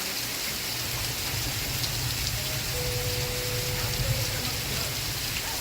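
Steady rain falling, an even hiss. A low rumble comes in about a second in and eases near the end, and a faint held tone sounds briefly in the middle.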